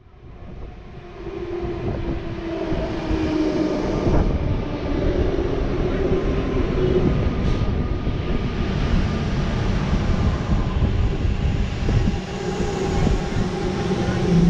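Electric suburban train moving along a station platform: a steady rumble of wheels on the track that builds over the first couple of seconds and then holds.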